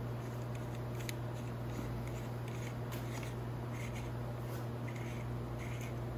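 Steady low electrical hum with a few faint, irregular scrapes and clicks of hand work on a throttle cable's soft-metal end fitting.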